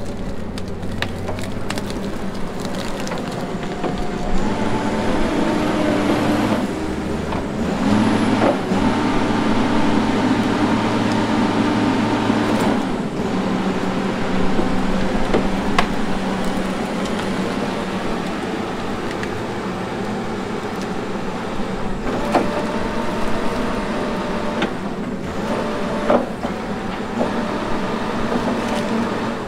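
Tigercat 620E grapple skidder's diesel engine working under heavy load as it pulls big logs. It revs up a few seconds in, holds higher for several seconds, then settles to a steadier pull. A few sharp clanks from the grapple and logs come through, about a third of the way in and again near the end.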